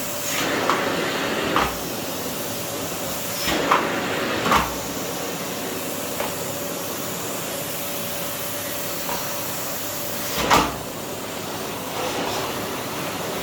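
Philips PowerPro FC9331/09 900 W bagless vacuum cleaner running steadily, a low airy rush with a faint steady hum. A few short knocks break in, the loudest about ten seconds in.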